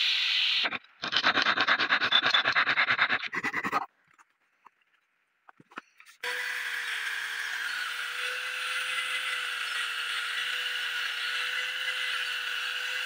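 Electric angle grinder with a sanding pad, sanding old wood: a steady motor whine under a sanding hiss. About a second in come some three seconds of rapid rhythmic scraping strokes, then a gap of about two seconds, and from about six seconds in the grinder runs steadily again.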